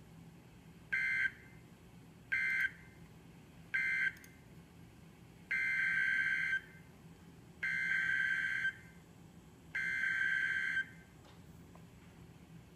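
NOAA Weather Radio SAME digital data bursts: three short buzzy bursts, the end-of-message code closing the previous statement, then three longer bursts of about a second each, the coded header that opens a new alert. A faint steady hum lies underneath.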